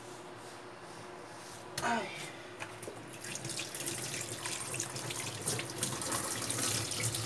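Kitchen tap water running onto a cloth being rinsed and wrung out in a stainless steel sink, splashing into the basin. The water comes on about three seconds in, after a quieter stretch.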